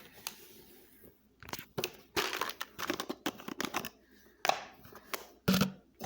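Plastic packaging crinkling and rustling in irregular bursts, with crunching. A short pitched sound comes near the end.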